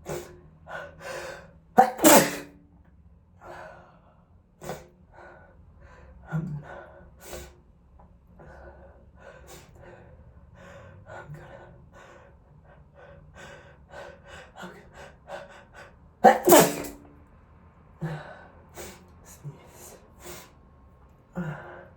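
A person sneezing hard twice, about two seconds in and again about sixteen seconds in, each sneeze preceded by a sharp intake of breath. Gasping breaths and sniffs in between.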